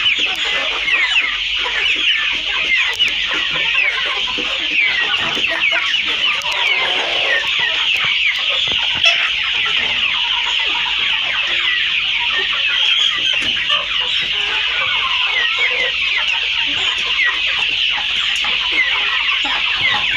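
A flock of kienyeji chicken chicks peeping without a break, many high, short chirps overlapping into a steady chorus.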